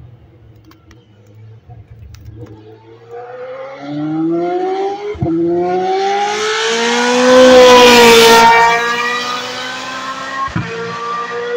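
GP2 racing car's 4.0-litre V8 accelerating up the straight and past, its note climbing in pitch through the gears with a sharp upshift about five seconds in. It is loudest about two-thirds of the way through, then drops in pitch and fades as the car goes by.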